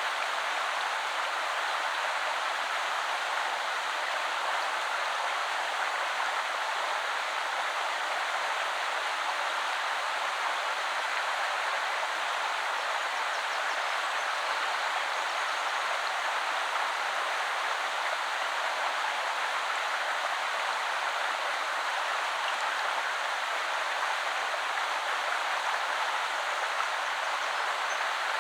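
Woodland river flowing over stones: a steady, even rush of water with no breaks.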